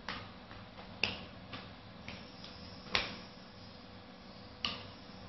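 Nunchaku clacking as they are swung: about six sharp clicks at irregular spacing, the loudest about three seconds in.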